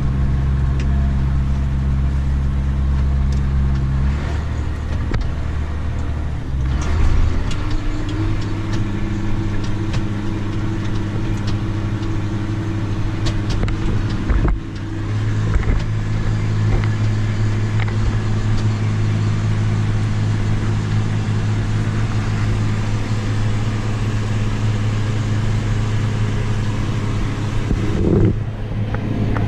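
John Deere 9670 combine running steadily while harvesting soybeans: a constant engine and machinery hum. The hum shifts in pitch a few seconds in and drops briefly about halfway through.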